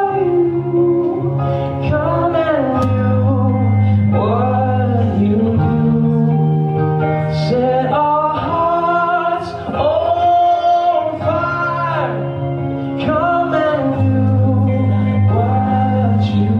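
Gospel-style music with singing voices carrying a melody over sustained bass notes.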